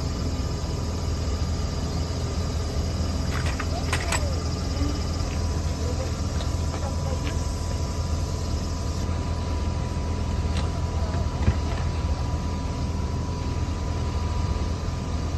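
Large tour coach idling, a steady low engine hum, with a sharp click about four seconds in.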